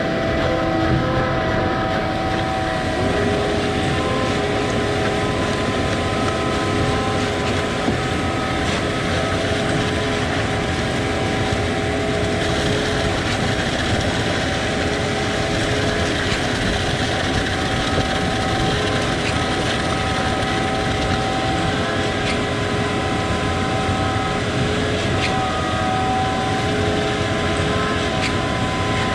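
Concrete boom pump truck running under load: a steady diesel engine drone with high hydraulic whine tones, one of them stepping up in pitch about three seconds in, and a few sharp knocks scattered through.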